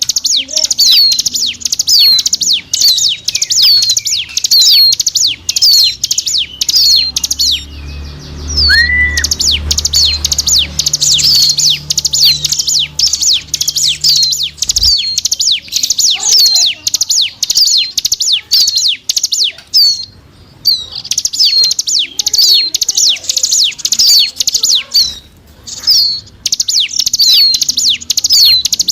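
Ciblek gunung, a prinia, singing a lure call: long runs of rapid, high, sharp notes, each sweeping downward, with a few short breaks.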